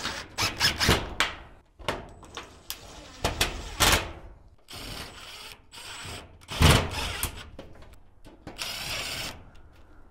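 Thin corrugated steel shed wall sheets being handled and lined up: an irregular string of knocks, clicks and rattles with a few short scraping bursts, and one louder thump about two-thirds of the way through.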